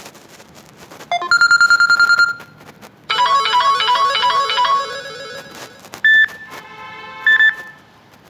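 Samsung Galaxy Grand Prime G530 phone playing short electronic ringtone melodies one after another: a quick rising run into a held, pulsing tone about a second in, then a fast repeating melodic figure, then a few shorter chimes after a brief gap.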